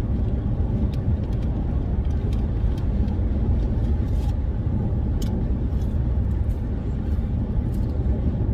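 Steady low rumble of a car's road and engine noise heard inside the cabin, with a few faint clicks.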